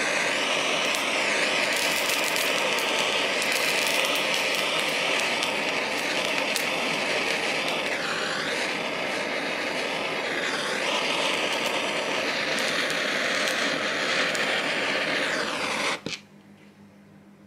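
Handheld gas torch on a canister burning with a steady loud hiss of the flame jet, wavering in pitch twice midway, then shut off abruptly near the end.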